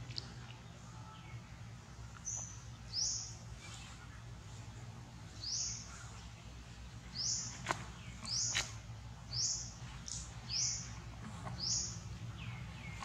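A bird chirping: about ten short, high-pitched calls, roughly one a second, with two sharp clicks near the middle and a steady low hum underneath.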